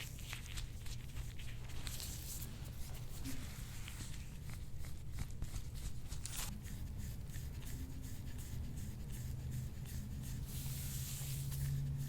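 Repeated rubbing and scraping strokes over skin during hands-on soft-tissue treatment, as short scratchy strokes and longer hissing rubs. A steady low hum runs underneath and grows a little louder near the end.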